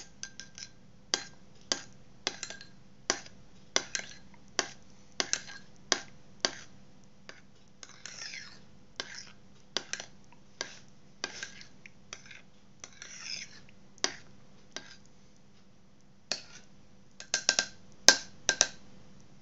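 Metal spoon stirring thick tomato paste in a ceramic bowl, clinking against the bowl's sides about twice a second, with a few brief scrapes. Near the end comes a quick run of sharper clinks.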